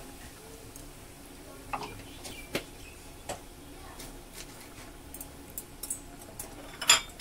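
Scattered light clicks and taps from a pan of dal on the stove, about one a second, over a low steady background, with a couple of sharper knocks from the pan and utensils near the end.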